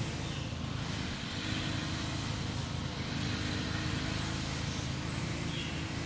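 Steady low rumble with a faint hum that wavers slightly in pitch from about a second and a half in, like a motor vehicle running at a distance.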